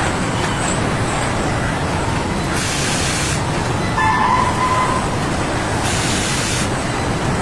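Steady machine noise from a car-body assembly line of industrial robots, with two short bursts of hiss about three and six seconds in and a brief whine about four seconds in.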